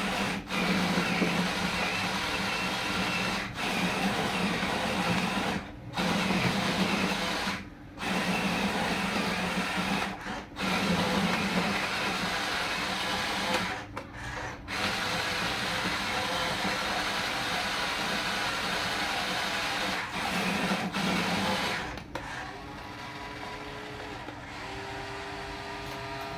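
Electric motor and gearbox of a radio-controlled model construction vehicle whirring in repeated bursts, cutting out briefly several times as the throttle is worked, and running quieter over the last few seconds.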